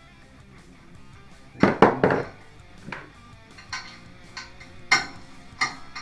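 Metal clinks and knocks of tools and hardware against an aluminium extrusion frame as a 3D-printed stepper-motor bracket is fitted. A burst of loud knocks comes about two seconds in, then single clinks about every half second to second.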